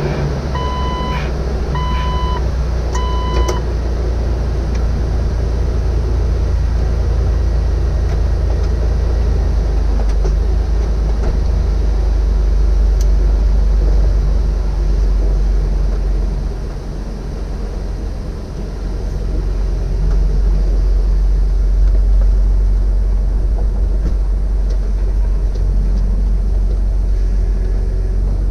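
Jeep Wrangler TJ's 4.0-litre inline-six engine running with a steady low rumble, heard up close from the hood, briefly quieter about two-thirds of the way through. In the first few seconds a warning chime beeps four times, about once a second.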